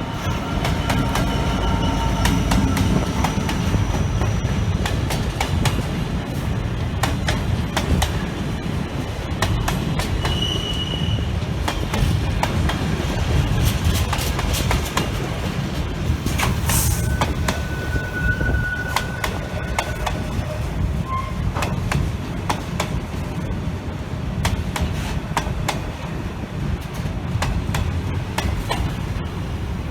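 Freight train hauled by a DB Schenker Class 66 diesel locomotive passing at the platform, with a steady heavy rumble and a continual clickety-clack of wagon wheels over the rail joints. A few brief wheel squeals ring out about ten seconds in and again near the two-thirds mark.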